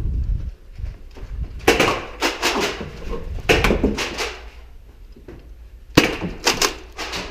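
Nerf Rival foam-ball blasters being primed and fired: sharp plastic clacks and snaps in three quick clusters, a couple of seconds apart.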